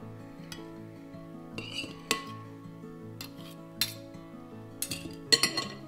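A serving utensil clinking and scraping against a ceramic plate as pieces of roasted broccoli are piled onto it: scattered sharp clinks, with a quick run of them near the end. Light background music plays underneath.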